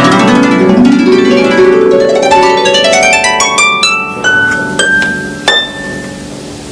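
Harp music: rapid rising runs of plucked notes that gradually slow and fade, ending with a few single high notes left ringing.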